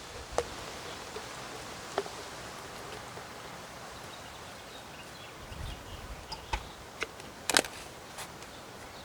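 Steady outdoor background noise with a few scattered short clicks and taps, the clearest one near the end.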